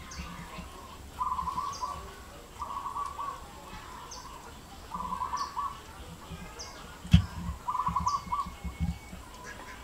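A bird calls four times, each a short pulsed note about half a second long, spaced two to three seconds apart, with faint short high chirps from another bird in between. A single sharp knock comes about seven seconds in.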